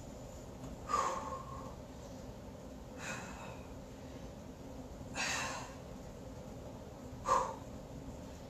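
A woman's forceful exhales, four in all, about one every two seconds, pushed out with the squeeze of each Superman back-extension rep, over a steady low hum.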